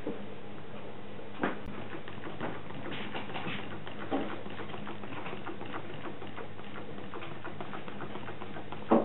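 Small homemade Stirling engine running, its wire crank and spinning flywheel making a rapid, uneven clicking, with a few louder knocks, the sharpest near the end.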